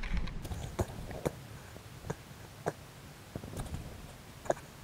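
About seven sharp, irregularly spaced clicks and ticks heard underwater, over a faint hiss, with a low rumble at the very start.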